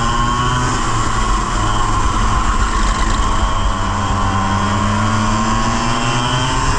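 100cc two-stroke kart engine running hard at close range, its revs dipping through the middle and climbing again near the end.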